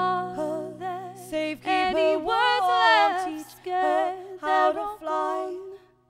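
Two women singing together in a folk duo over a held, ringing acoustic guitar chord. The voices end the line a little before the end and the sound dies away, closing the song.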